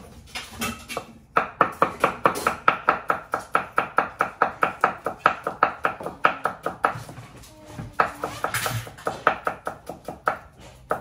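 Broad-bladed knife chopping red onion on a wooden cutting board: quick, even strokes about four to five a second, starting about a second in, with a short break about two-thirds of the way through before they resume.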